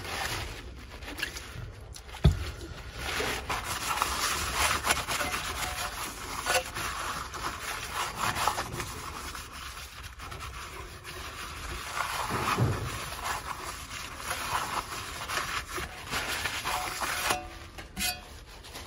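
A cloth rubbing back and forth over the pad plate of a Bona floor-sanding edger, wiping it clean of old adhesive with methylated spirits, with one knock about two seconds in.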